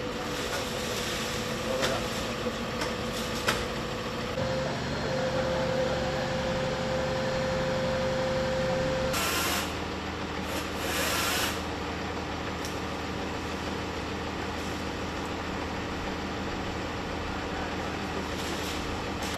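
Aerial ladder fire truck's engine running steadily. Its note steps up about four seconds in and changes again about nine seconds in, with short bursts of hissing just after the second change.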